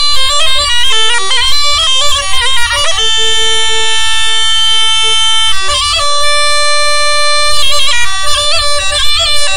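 Tulum, the bagless-drone Black Sea bagpipe, playing a fast, heavily ornamented melody. It settles into long held notes from about three seconds in, and quick runs resume near the end.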